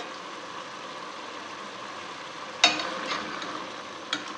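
Steel ladle clinking and scraping against a stainless-steel pot as chicken pieces are lifted out of the simmering curry, over a steady sizzle. One sharp clink comes about two and a half seconds in, with a few lighter ones after.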